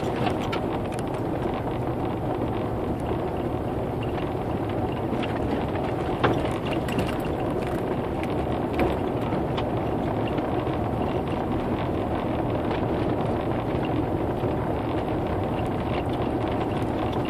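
Steady road and engine noise of a car driving, heard inside the cabin, with a couple of light knocks from bumps in the road.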